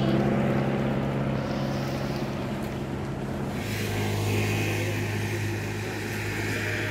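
A steady low engine drone, shifting a little lower about three and a half seconds in, over a background hiss of wind and choppy lake water.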